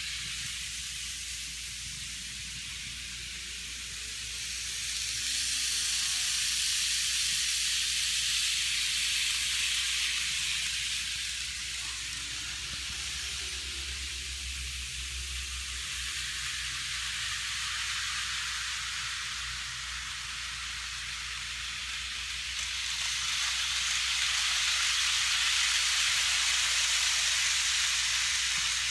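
Model train running on a layout's track: a steady hissing whir of wheels and motor that grows louder twice as the train comes close, from about five seconds in and again near the end.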